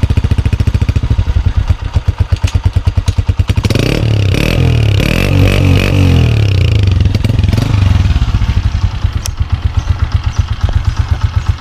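Honda CG125's single-cylinder four-stroke engine running through a newly fitted chrome aftermarket silencer in an exhaust sound check. It idles with an even, rapid pulse, is revved up and down several times from about four seconds in, then drops back to idle.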